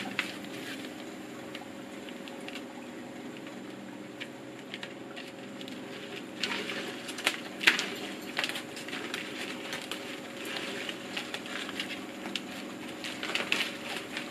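Crinkling and light clicking of pinwheels and thin wire being handled and threaded together, busier about halfway through and again near the end, over a steady low hum.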